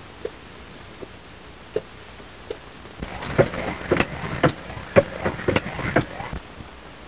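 Hand-cranked diver's air pump being worked on a boat deck: a regular click about every three-quarters of a second, then about three seconds of louder knocking and clatter as the flywheel is cranked.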